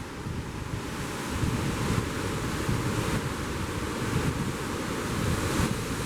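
Ocean waves rushing below a cruise ship's balcony, a steady hiss that swells and eases, with wind buffeting the microphone in gusty low rumbles.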